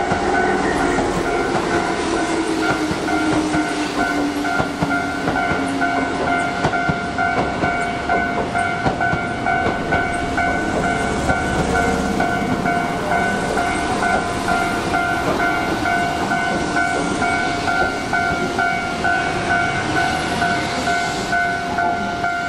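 Japanese railway level-crossing alarm ringing with a steady, rapidly repeating electronic ding, over the rumble and wheel clatter of a Keihan 6000 series electric commuter train running past close by. The crossing alarm stops near the end.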